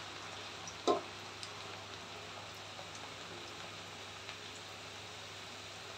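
Cabbage pakoda batter deep-frying in hot oil in a metal kadai: a steady sizzling crackle, with one short knock about a second in.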